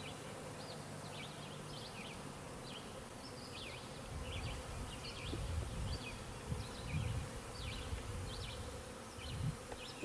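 Honey bees buzzing steadily around an open hive while a brood frame is handled. Low bumps and rumble come in from about four seconds in.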